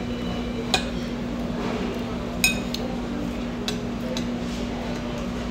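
Cutlery clinking against dishes while eating: a few sharp clinks, one at under a second in and a ringing one about two and a half seconds in, over a steady low hum.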